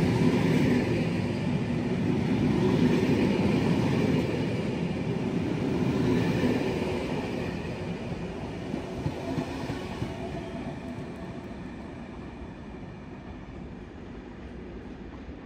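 Passenger train coaches rolling along the rails, a dense rumble that fades steadily through the second half as the train pulls away, with a few sharp clicks midway.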